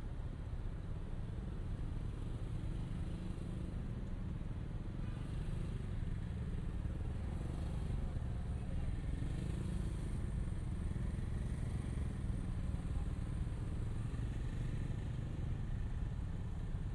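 Steady city street ambience: a constant low rumble of traffic, without distinct events.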